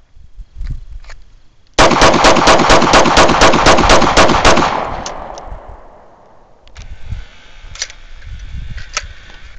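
HK USP .40 S&W pistol fired in rapid succession, twelve shots at about four a second starting about two seconds in, the reports ringing on and dying away after the last.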